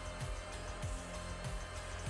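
Background music with a steady beat: a low drum stroke a little under twice a second over held tones.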